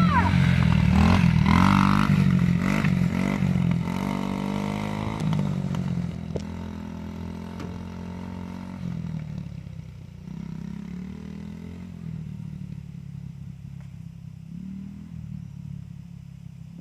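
Yamaha TT-R90 dirt bike's small four-stroke single-cylinder engine running close by, its note rising and falling with the throttle. It then fades steadily as the bike rides away.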